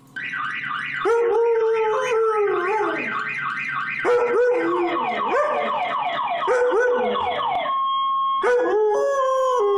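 Siberian husky howling along to an electronic siren: the siren runs in quick falling sweeps, three or four a second, while the dog gives several long falling howls over it. The siren stops near the end and the husky keeps howling.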